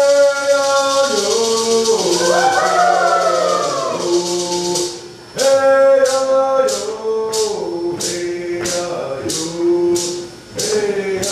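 A Cherokee social dance song: voices singing, several overlapping at times. From about five seconds in, a rattle keeps a steady beat of a little over two strokes a second.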